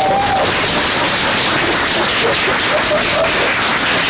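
A small audience applauding: many hands clapping densely and steadily.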